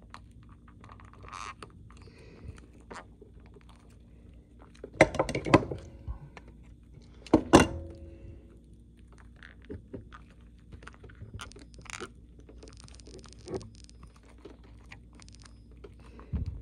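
Plastic vacuum hose being twisted by hand to unscrew its ribbed end from its plastic cuff: scattered clicks and rubbing, with two loud clusters of knocks about five and seven and a half seconds in and a fine crackle later on. The hose end is stuck and resists being turned.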